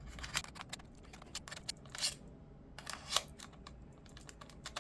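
Camera-strap quick-release mount being handled and fitted onto a camera: a run of small sharp clicks and plastic rattles, with two short scraping sounds around the middle. The second scrape, a little past halfway, is the loudest.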